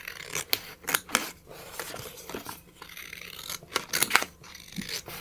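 Metal scissors snipping through a square of paper: a run of short snips, a pause of about two seconds, then another run of snips.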